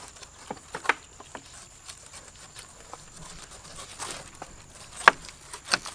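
Cleavers and knives cutting into pineapple rind: scattered short, sharp cuts and taps from several people peeling pineapples at once, the loudest about five seconds in.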